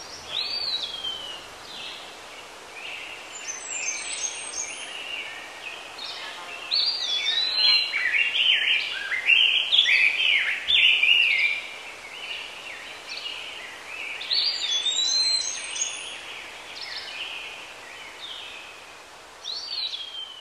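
Birds chirping and singing: bursts of short twittering notes and clear falling whistles over a steady hiss, busiest around the middle.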